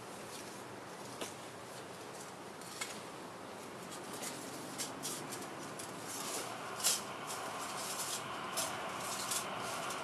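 Light metallic clicks and clinks from the thin steel panels of a small folding camping stove being slotted together, scattered at first and more frequent in the second half, with the sharpest click about seven seconds in.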